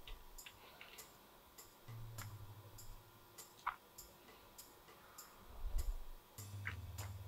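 Faint, steady ticking, a little under two ticks a second, with a couple of slightly sharper clicks about four and seven seconds in.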